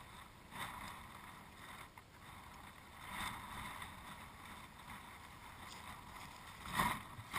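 Faint outdoor background noise that swells softly a few times, with a louder burst near the end.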